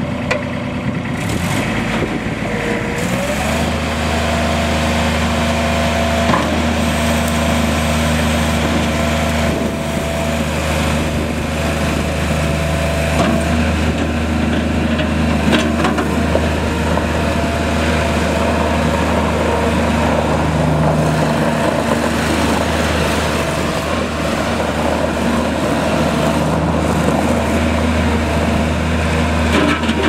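Bobcat 553 skid steer's diesel engine running, stepping up in speed about three seconds in and then holding a steady drone with a thin whine on top as the loader moves about on gravel.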